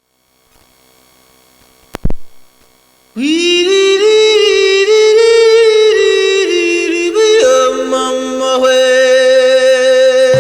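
A single thump about two seconds in, then music from about three seconds in: singing in long held notes that step between a few pitches.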